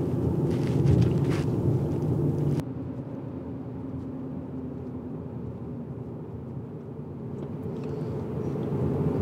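A 2020 Chevrolet Colorado's 3.6-litre V6 running under way, heard with road noise from inside the cab. The sound drops suddenly about two and a half seconds in and builds again near the end.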